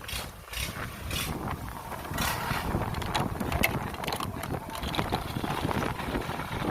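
Combine harvester engine running, with scattered clanks and wind buffeting the microphone.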